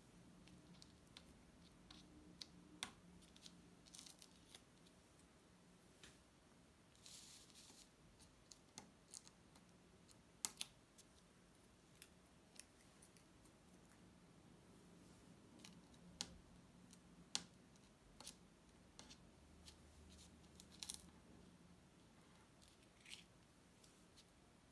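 Faint scattered small clicks and a few short scratchy rustles: a pin picking at and peeling the protective film off an adhesive sand-painting board, with fingertips pressing on the card.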